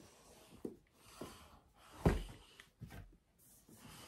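A large cardboard advent calendar box being handled and turned around: rustling and scraping, with a dull thump about two seconds in.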